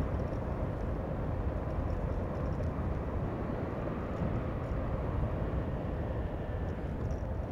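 Motorcycle running steadily while riding on a wet road, its engine blended with wind and road noise on the microphone.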